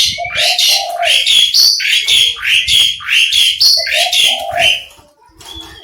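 An Oriental magpie-robin (kacer) singing loudly: a fast run of repeated sweeping notes, about two a second, that breaks off near the end into quieter twittering.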